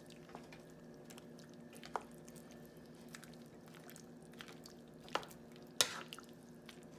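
A spoon stirring chicken soup in a pot: faint wet squishing with a few sharp clicks of the spoon against the pot, the sharpest near the end, over a steady low hum.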